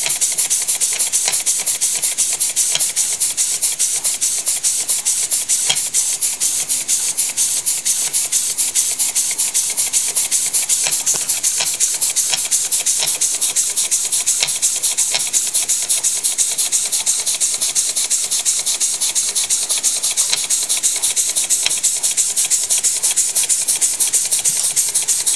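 Homemade model engine running steadily, with a fast, even rhythm of hissing puffs and light clicks from its slide and cam mechanism.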